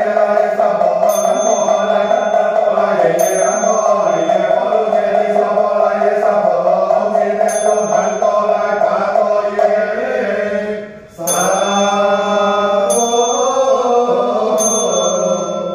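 Male voice chanting a Buddhist prayer in a steady, sustained recitation, with a short break for breath about 11 seconds in. A small bell is struck about six times, each strike ringing briefly over the chant.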